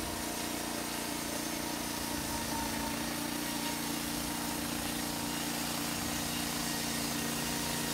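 Small engine of a portable band sawmill running steadily, with an even hum that holds one pitch throughout.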